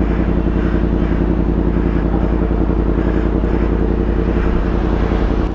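Yamaha MT-10's crossplane inline-four engine idling steadily.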